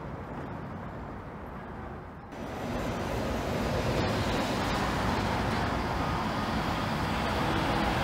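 Trenitalia D445 diesel-electric locomotive approaching slowly, its diesel engine running with a steady rumble that grows louder. The rumble comes in abruptly about two seconds in, after a quieter low background rumble.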